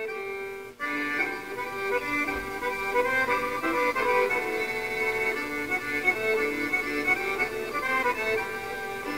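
Background music: an accordion playing a tune of held, changing notes, with a short break a little under a second in.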